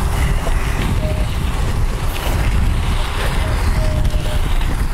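Wind buffeting a head-mounted camera's microphone while riding a bicycle, a steady loud rumble with a hiss above it.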